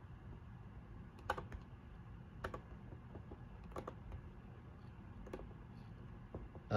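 Faint, scattered clicks from a computer being worked, a few sharp ones spaced a second or so apart among softer ticks.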